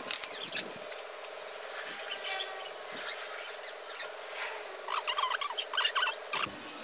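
Steel hand trowel scraping and scratching against wet cement mortar in short strokes, with a quick flurry of strokes about five seconds in.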